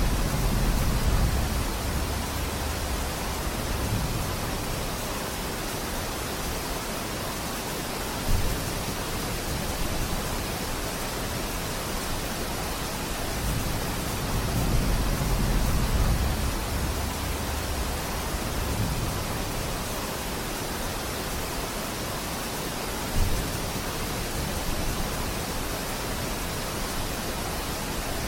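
Steady rain falling in a forest: an even hiss with slow low rumbling swells, and two brief louder knocks.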